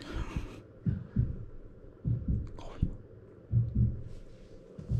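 Kittens squirming on a lap under a stroking hand: soft low bumps and thuds in small clusters about once a second, with brief rustles of fur and cloth.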